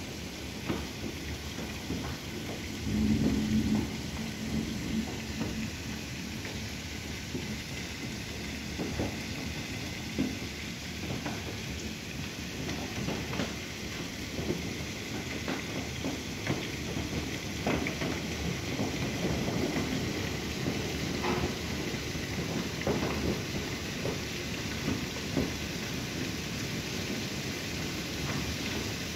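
Heavy rain falling in a thunderstorm: a steady hiss with many sharp drops striking close by, and a brief louder low rumble about three seconds in.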